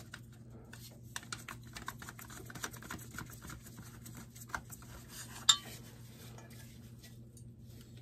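Scattered light metallic clicks and clinks of tools and parts being handled while working on a gas boiler, with one sharper click about five and a half seconds in, over a faint steady hum.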